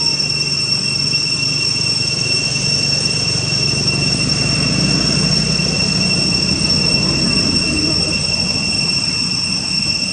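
Steady high-pitched insect drone holding one unwavering tone, with a low noise haze underneath.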